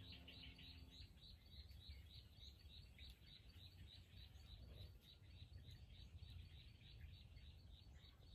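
Near silence: quiet outdoor ambience with a faint high chirp repeating evenly about four times a second, over a low rumble.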